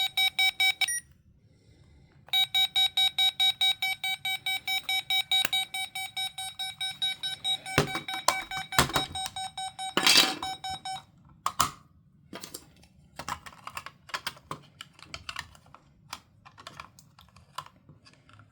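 Weather radio sounding its alert tone in test mode: loud, rapid beeping about five times a second, with a short break about a second in, stopping about two-thirds of the way through. Clicks and knocks of its buttons being pressed and the radio being handled follow.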